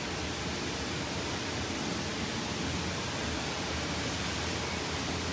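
Natural gas escaping under pressure from a ruptured main line, a steady, unbroken hiss. The excavator-burst main has not yet been shut off.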